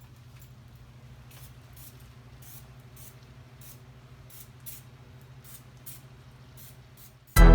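Steel tube frame being tack welded: short hissing crackles of the welding arc come and go at irregular intervals over a steady low electrical hum. Music comes in at the very end.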